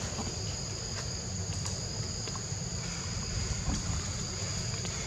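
Steady, high-pitched drone of insects in the forest, over a low wind rumble on the microphone, with a few faint ticks.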